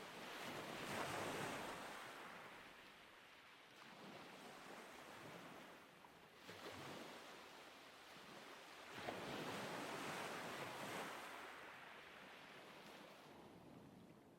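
Waves washing in, a soft hiss that swells and fades in surges every few seconds.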